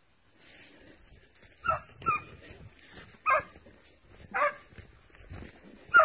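Hunting dogs barking on the chase: about five short, sharp yelps roughly a second apart, the loudest near the end.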